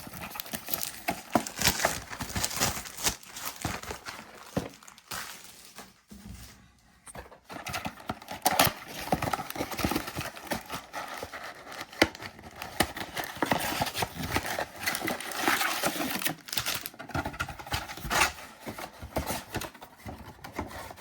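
Packaging of a football trading-card mega box crinkling and tearing as it is opened and its packs handled, with irregular rustles and sharp taps. There is a short lull about six seconds in.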